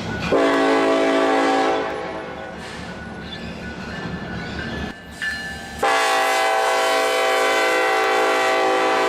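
Diesel locomotive's multi-chime air horn sounding twice, a short blast of about a second and a half, then a long steady blast from about six seconds in, over the rumble of the moving train.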